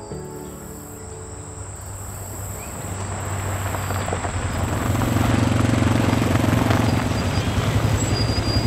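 Engine of a side-by-side utility vehicle growing louder from about three seconds in, then running steadily with a low, fast-pulsing drone as it comes close.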